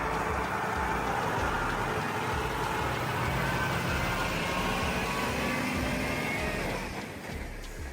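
Heavy earthmoving machine's engine running steadily, easing off near the end.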